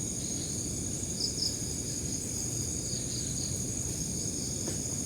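Crickets trilling steadily at a high pitch in a night-time insect chorus, with a couple of brief sharper chirps about a second in and a low rumbling noise underneath.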